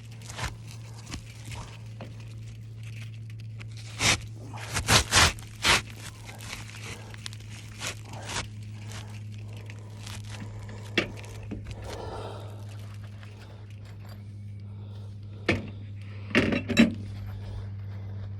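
Scattered scrapes and sharp knocks of hand work on asphalt roof shingles, with a cluster of knocks about four to six seconds in and another near the end, over a steady low hum.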